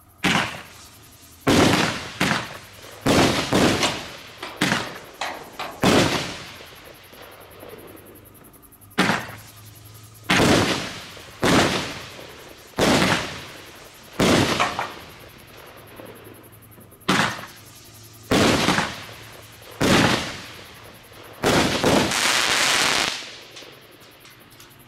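Imperial Dragon Neon Purple 200-gram, 12-shot fireworks cake firing: a string of sharp bangs from the shells lifting and breaking, each tailing off, at irregular gaps of about one to three seconds. Near the end the finale shots break into a dense crackling that lasts about a second and a half.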